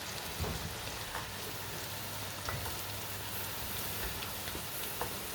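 Potatoes and spices frying in a pan, a steady sizzle with a few light knocks of utensils or food going in.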